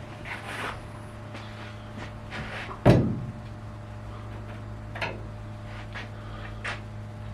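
Hand tools and parts being handled: a few light clicks and scrapes, and one loud metallic clunk about three seconds in that rings briefly, over a steady low hum.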